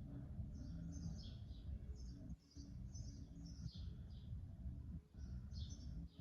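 Small songbirds chirping: quick, short falling chirps, several a second with a brief pause past the middle, over a low background rumble.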